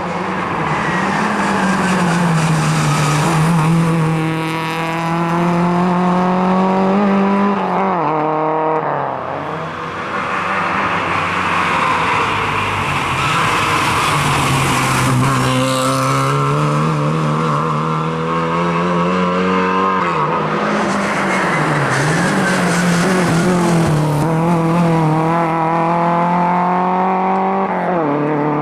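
Rally car engine at high revs, its note climbing through the gears and dropping sharply about eight, twenty and twenty-eight seconds in as the driver lifts or brakes for corners, with tyres squealing in between.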